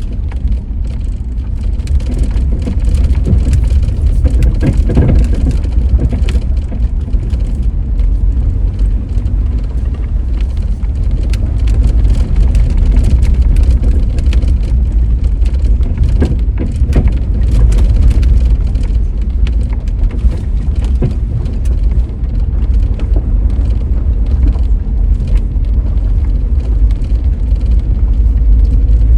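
A vehicle driving on a Forest Service road: a steady, heavy low rumble of road and engine noise, with many scattered small ticks and knocks.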